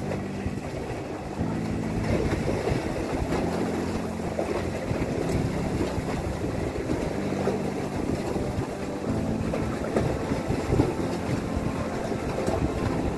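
Wind on the microphone and sea waves washing against the breakwater's concrete blocks, over a low steady hum.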